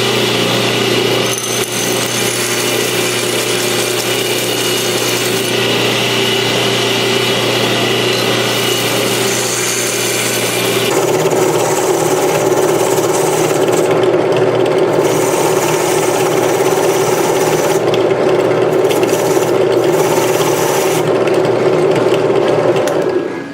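Electric abrasive power tool working a steel knife blade to refinish it: a steady motor hum under the rough hiss of the abrasive on the steel. It gets louder about eleven seconds in and cuts off abruptly just before the end.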